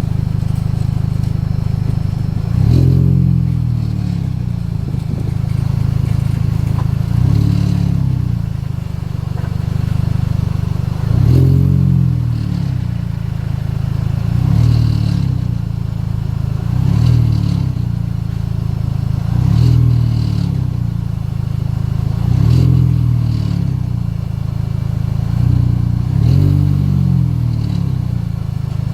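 A vehicle engine running with a low drone that swells and dips in pitch every few seconds, over a faint clattering rattle whose cause is unknown.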